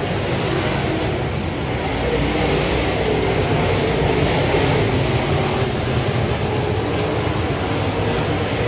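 A pack of dirt modified race cars running at speed around a dirt oval, several V8 engines overlapping and rising and falling in pitch as they go around the track.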